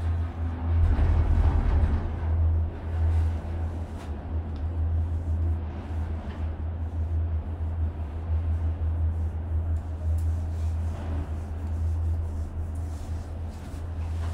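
Steady low rumble and hiss inside a Skyliner gondola cabin riding along its cable. It swells for a moment about a second in.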